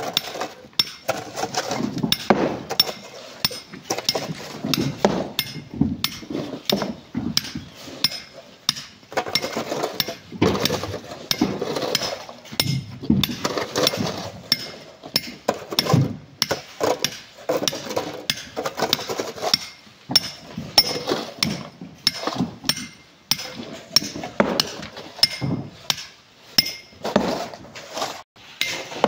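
A metal hand tool repeatedly striking rock in an uneven rhythm, each blow a sharp knock with a metallic ringing clink, as stone is cut by hand.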